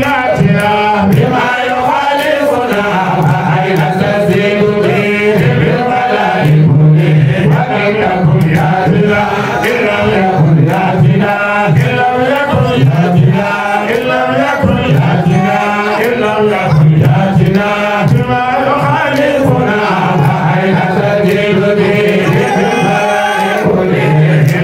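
A man chanting an Islamic devotional song into a microphone, his voice amplified, holding and sliding between long pitched notes without a break.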